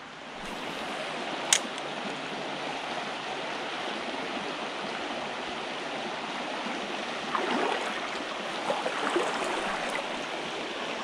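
Small creek's water running steadily, an even rushing sound. A single sharp click about one and a half seconds in, and a few slightly louder irregular sounds between about seven and nine seconds in.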